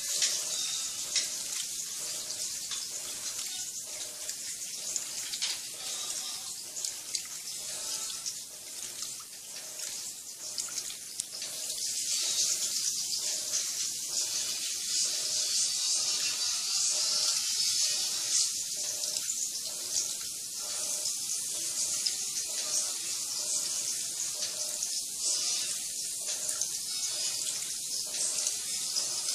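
Water splashing and swishing in the tub of a Turbo Economia 10 kg top-loading washing machine as it washes two blankets at the high water level; the sound swells and eases.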